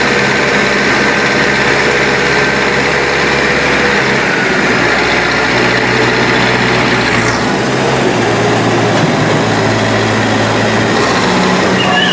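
Backhoe loader's diesel engine running steadily, its note shifting about seven seconds in.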